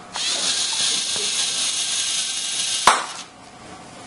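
LEGO Mindstorms NXT robot's motors and plastic gears grinding for about three seconds, a ratchet-like mechanical noise that ends with a sharp click.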